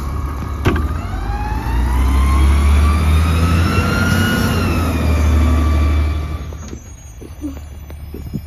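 Garbage truck's engine and drivetrain pulling away and accelerating past, a heavy low rumble under a whine that rises in pitch for about three seconds and then falls. There is a single clunk just under a second in, and the sound drops off sharply about six and a half seconds in.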